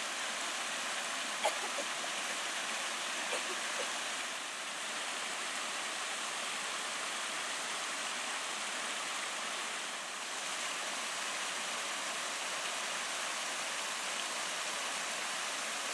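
Steady rush of falling and flowing water at a waterfall, with a single faint click about a second and a half in.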